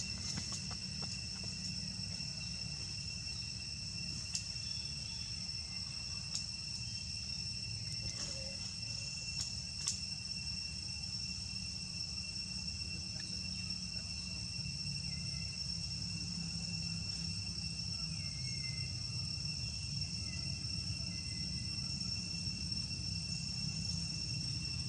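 Steady chorus of insects trilling, holding a few constant high pitches, over a low steady rumble, with a few faint ticks in the first ten seconds.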